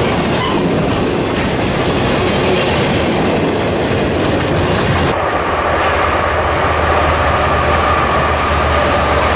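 Train rolling past with a loud, dense rumble of wheels on rail. About five seconds in, the sound switches abruptly to a low steady drone with a steady high-pitched whine over it.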